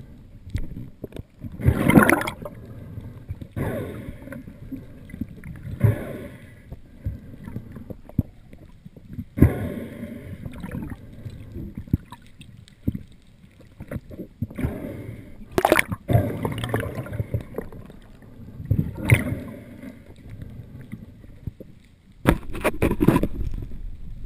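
Muffled underwater sound through a camera's waterproof housing: a steady low rush of water, broken every few seconds by loud surges, knocks and scrapes as a speared grouper and the spear shaft are handled.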